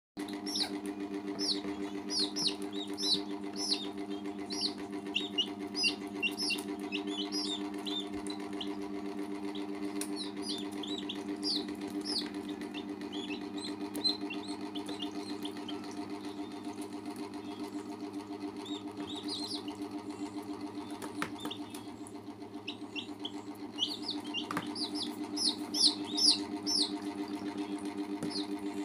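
Baby chicks peeping in quick runs of short, high, falling chirps, with pauses between the runs. A steady low hum runs underneath.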